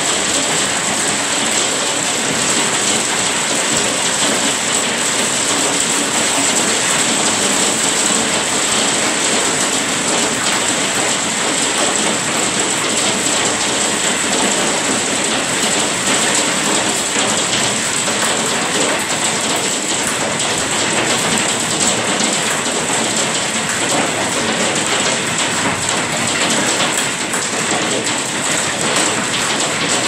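Hailstorm heard from inside a glass sunroom: hail and heavy rain beating steadily on the glass doors and roof in a dense, unbroken clatter.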